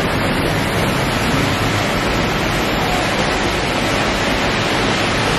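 Heavy rain pouring down: a steady, loud hiss of rainfall.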